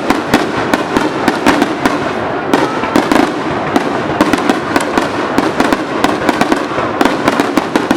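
Aerial fireworks bursting in rapid succession: a dense, continuous string of sharp bangs and crackles, several per second.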